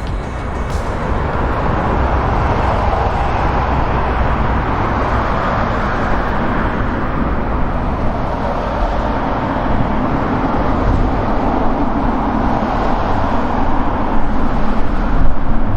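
Jet airliner engines rumbling with a steady roar, growing somewhat louder and rougher near the end.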